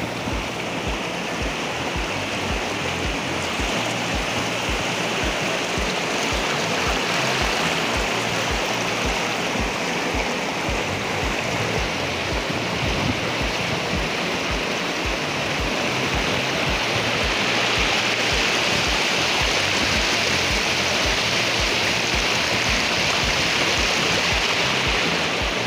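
Muddy flash-flood water rushing fast over rocks in a desert wadi: a steady, dense rush of water that grows a little louder in the second half.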